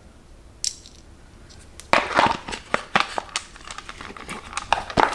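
Precision measuring tools and their cases being handled in a toolbox drawer: a single click, then a run of light clicks, taps and rustling from about two seconds in.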